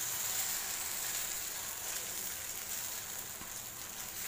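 Radish adai batter sizzling in ghee on a hot dosa griddle while a ladle spreads it: a steady hiss that eases a little toward the end.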